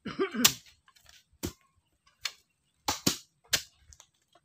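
Sharp knocks, about six irregular strikes over four seconds. A brief voice-like sound comes at the very start.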